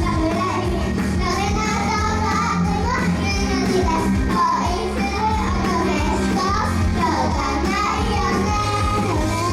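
Pop song with children singing over a backing track that has a steady beat.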